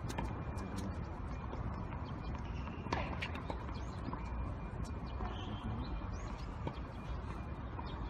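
Tennis ball being struck by rackets and bouncing on the court: sharp knocks at uneven intervals over a steady low rumble.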